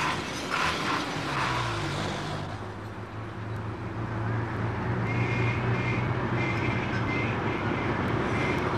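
Goods lorries and a van driving along a road toward the listener: a steady engine drone that grows louder as they come closer, over road noise. From about halfway through, a high tone sounds in short repeated pulses.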